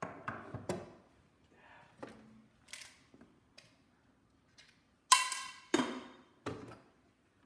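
Hand tools knocking and clinking while someone rummages through a toolkit for a small screwdriver: a scattered series of knocks and clicks, the loudest a ringing metal clink about five seconds in.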